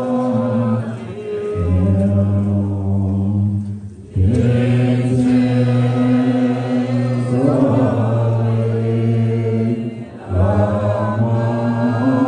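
Tibetan Buddhist monks chanting together in a low, steady drone of male voices, with brief pauses for breath about four and ten seconds in.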